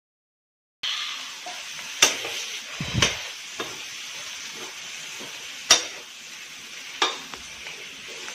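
Boiled potatoes sizzling in hot ghee in a metal kadhai, starting about a second in, while a steel ladle stirs them and knocks sharply against the pan about four times.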